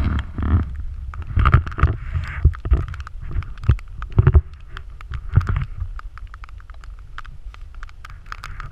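Wind rumbling on the microphone of a walking camera, with irregular footsteps and small clicks on the trail. The rumble is heavier in the first half and eases off after about six seconds.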